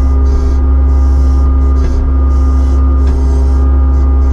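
Kubota SVL75-2 compact track loader's diesel engine running steadily, a loud, even, deep drone.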